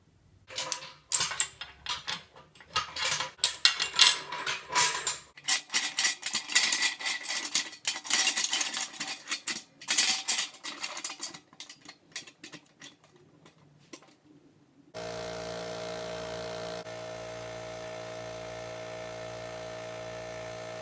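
Metal clinking and clattering as the wing-nut clamps on a paint pressure pot's lid are fitted and tightened down. About fifteen seconds in, a steady hum starts and holds: the air compressor running to pressurize the pot.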